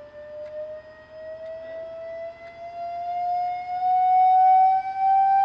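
Electronic test tone from the loudspeaker driving a Rubens flame tube, gliding slowly upward in pitch as the frequency is raised toward 800 Hz, growing louder as it climbs.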